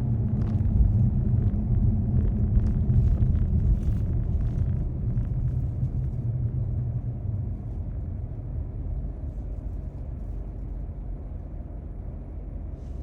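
Low road and drivetrain rumble of a car driving on a snowy road, heard from a dashcam inside the car. Scattered light ticks and taps come in the first few seconds, and the rumble grows steadily quieter over the second half.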